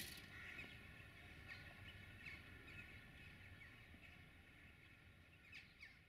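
Near silence with faint, scattered chirps of small birds over quiet outdoor hiss, fading away toward the end. A sharp click right at the start.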